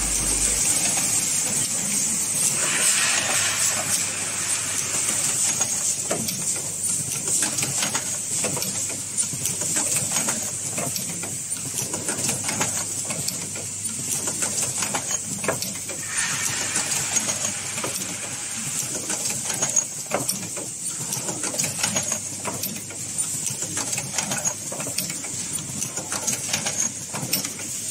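Automatic capacitor production machinery running: a vibratory bowl feeder and a lead-welding and tape-wrapping machine, giving a steady high hiss under a quick, irregular clatter of small metal clicks.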